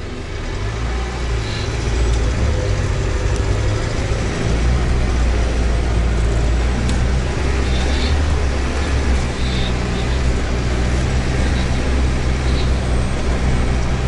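Burlak 6x6 all-terrain vehicle's diesel engine and drivetrain droning steadily inside the cab while driving, growing louder about a second or two in and then holding, with a few faint clicks.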